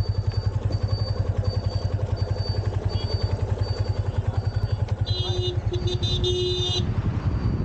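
Yamaha FZ motorcycle's single-cylinder engine running at low revs while riding, a rapid even thudding. About five seconds in, a horn honks in three short blasts lasting under two seconds, and a faint high beep repeats about every three-quarters of a second.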